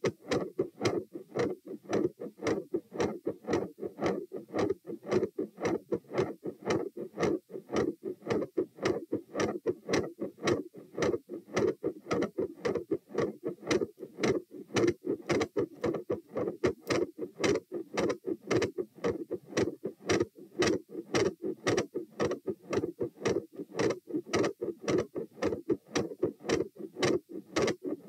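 Human heartbeat heard through a stethoscope at the tricuspid area: a steady, regular run of lub-dub beats, the first and second heart sounds.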